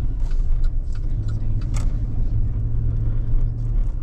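Vehicle engine and road noise heard from inside the cab while driving: a steady low rumble with a few light clicks.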